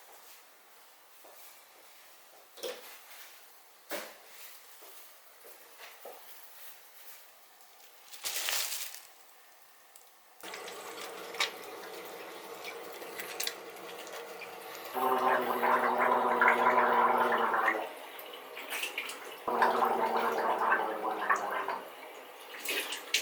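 Running water, coming in two louder spells, with a few light clicks and knocks before it.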